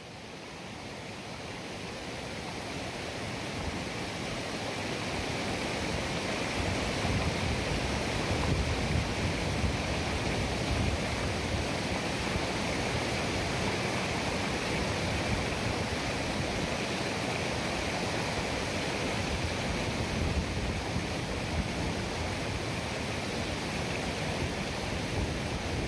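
Water rushing and splashing over rocks in a shallow stream cascade, a steady rush that fades in over the first several seconds.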